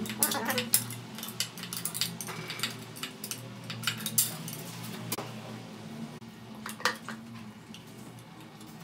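Irregular metallic clicks, clinks and scrapes of a screwdriver working a steel snap ring inside an Audi automatic transmission case, thinning out after about five seconds. A steady low hum runs underneath.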